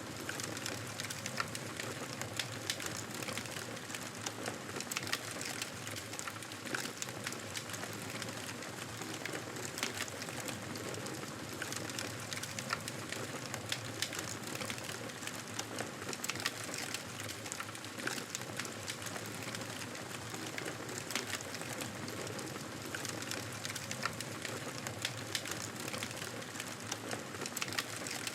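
Wood fire burning with a steady hiss and many irregular crackles and pops.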